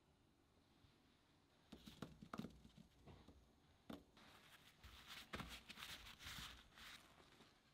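Faint kitchen sounds: a few soft taps as raw potato sticks are set down on paper towel, then a quiet rustle of paper towel being pressed and patted over them to blot off the soaking water.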